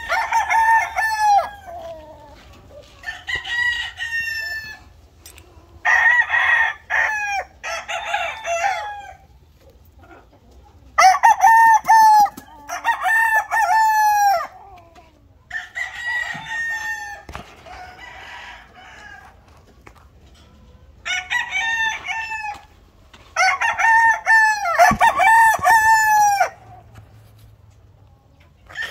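Several gamefowl roosters of Sweater and Yellow Leg lines crowing in turn, about ten crows spaced a few seconds apart, some of them back to back.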